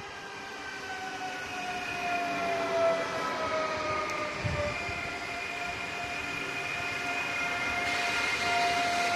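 Z 24500 (TER 2N NG) double-deck electric multiple units, two sets coupled, passing close by. Their electric whine sounds in several tones that slide down in pitch over the first four seconds or so, then hold steady and grow louder over the rumble of wheels on rail.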